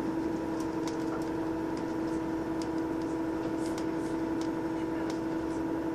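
Interior running noise of a Class 158 diesel multiple unit on the move: a steady drone from the underfloor engine and drivetrain with one constant tone, over a low rumble from the wheels, with faint scattered ticks and rattles.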